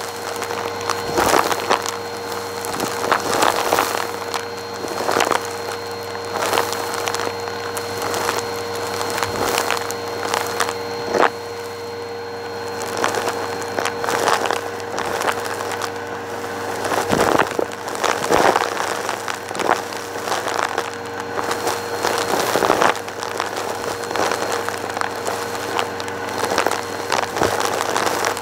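Bissell Purple Helix vacuum running steadily through its hose and dusting brush, with irregular crackling and rattling as lint, glitter and confetti are sucked up the hose.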